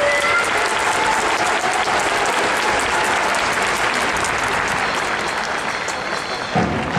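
A large stadium crowd of football supporters clapping steadily, applause as their chant for a player ends. Near the end, music suddenly starts up.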